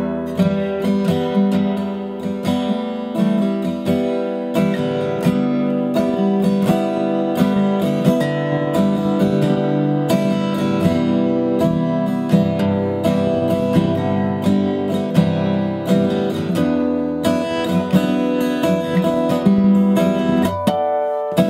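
Acoustic guitar strummed by hand, a steady run of chords ringing out.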